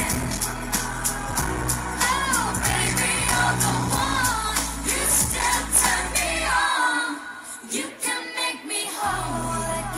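Female pop trio singing live through microphones over amplified pop backing music with a steady beat. The bass drops out for about two seconds near the end, leaving the voices and beat, then comes back in.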